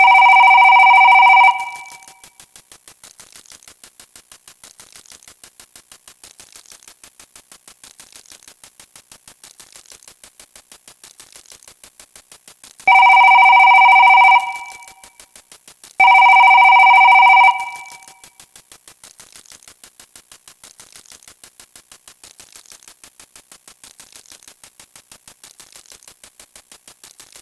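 Electronic telephone-ring sound effect: steady stacked tones in bursts of about a second and a half, once at the start and twice more in quick succession about halfway through, over a fast, even ticking.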